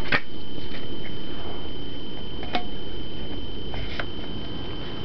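Handling noise from a plastic CD jewel case and its booklet: a low muffled rumble with a sharp plastic click at the start and another about two and a half seconds in, and a few faint ticks later. A faint steady high whine runs underneath.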